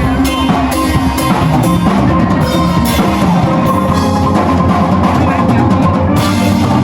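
Background music: a song with a steady drum-kit beat, bass and melody; no singing.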